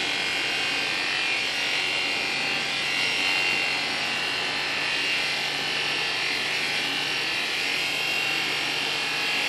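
Electric animal clippers running steadily, cutting through a llama's thick fleece.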